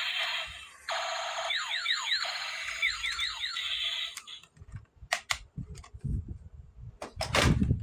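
A toy's electronic sound effect plays in bursts with short sliding chirps. About four seconds in it gives way to sharp clicks and low knocks of plastic toy pieces being handled.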